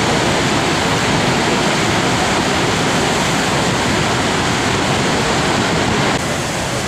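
Steady, loud roar of Niagara Falls' falling water, an even rushing noise with no pitch, dropping slightly in level in a sudden step about six seconds in.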